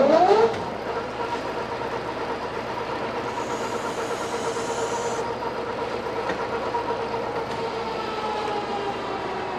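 American Pacemaker geared-head lathe: its gear whine rises in pitch as the spindle comes up to speed, then runs steadily. From about three and a half to five seconds in, a carbide tool cuts a chamfer on the end of the heavy-wall steel tube, adding a high hiss. Near the end the whine drops a little in pitch.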